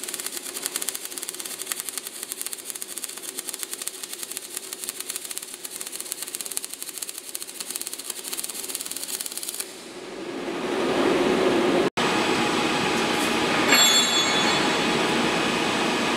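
Robot-held MIG welding torch arc crackling steadily and fast for about ten seconds, then cutting off abruptly as the weld ends. A louder, steady rushing noise follows.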